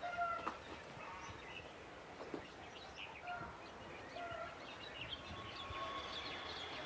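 Birds chirping in short, repeated calls over a steady background of city noise, with a few faint knocks.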